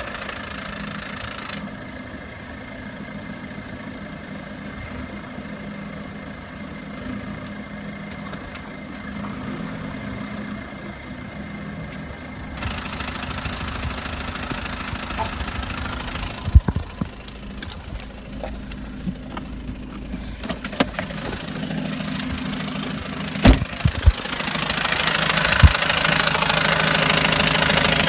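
2010 VW Golf's 2.0 TDI common-rail diesel engine idling, with a few sharp clacks over the running note and a louder stretch over the last few seconds. The popping-clacking comes from the gearbox side, which the owner suspects is a failing dual-mass flywheel, throwout bearing or clutch.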